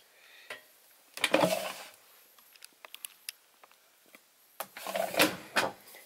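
Handling noises at a front-loading washing machine: two scraping, rustling bursts about a second long, with a few light clicks between them.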